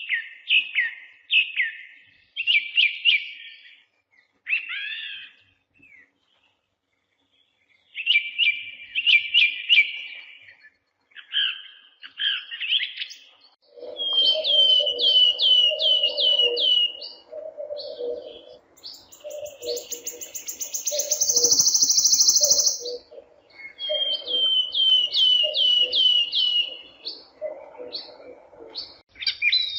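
Birds chirping and singing in short quick trills, phrase after phrase. About halfway through a lower call repeats steadily beneath them, and a high buzzing comes in for about three seconds.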